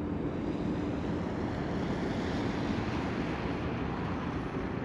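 Steady rushing of wind on the microphone, with the road noise of a small car driving away, swelling slightly about halfway through.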